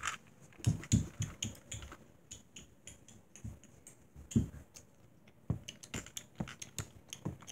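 Irregular light clicks, taps and soft knocks of small plastic toys being handled on a wooden table, a few strokes at a time with gaps between.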